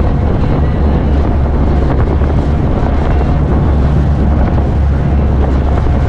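Wind rushing across the microphone over the steady low drone of a tour boat's engine under way.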